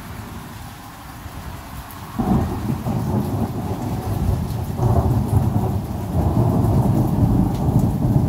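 Thunder rumbling in a thunderstorm: it breaks in suddenly about two seconds in, swells again midway and keeps rolling, over steady rain.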